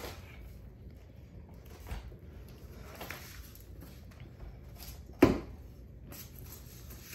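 Soft rustling of plastic wrap and foam packing peanuts as a plastic-wrapped wooden swing picker frame is handled on a hardwood floor, with one sharp wooden knock about five seconds in.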